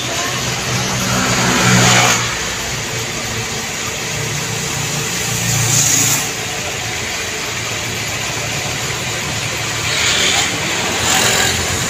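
Motor vehicle engines going past, their noise swelling and fading several times over a steady background hum.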